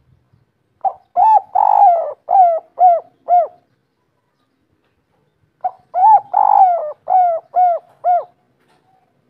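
Spotted dove cooing two song phrases, one about a second in and one past the middle. Each phrase has a couple of quick opening coos, one longer drawn coo, then three short evenly spaced end coos, the 'kuk 3' pattern.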